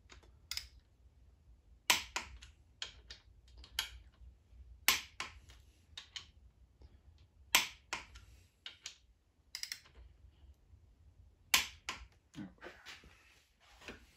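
Hand ratchet clicking in short runs of a few sharp clicks, one to three seconds apart, as connecting-rod cap bolts are tightened a little at a time.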